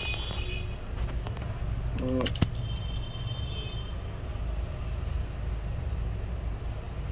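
Steady low background rumble. About two seconds in there are a few small sharp clicks, from fingers handling the tiny plastic scissor retainer clip of a laptop key.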